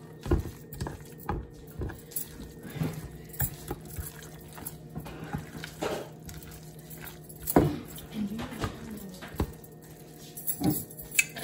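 Spoon stirring a thick ground-chicken, cream cheese and chopped green pepper mixture in a glass baking dish: irregular knocks and scrapes of the spoon against the glass with soft wet squishing, the loudest knock about seven and a half seconds in. A faint steady low hum runs underneath.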